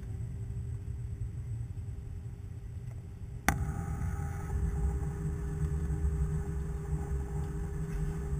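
Airliner cabin noise while taxiing: a steady low engine rumble with a faint steady hum above it. A single sharp click comes about three and a half seconds in, and the rumble is louder after it.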